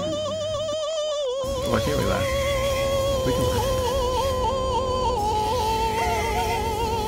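Music: a slow melody of long held notes with wide vibrato, moving up in pitch about halfway through, over a low steady accompaniment.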